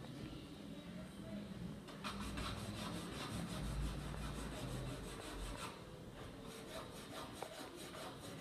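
A drawing tool scratching across the surface of a large wall drawing in quick repeated strokes, busiest in the middle, with a low rumble underneath for a few seconds.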